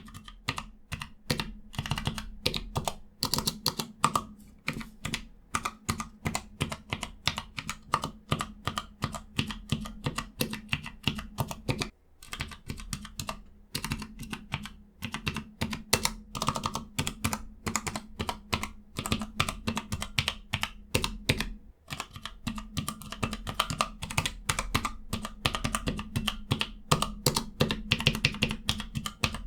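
Typing on a Cherry G84-4700 numpad's Cherry ML key switches: a quick run of keystroke clicks, several a second, pausing briefly twice.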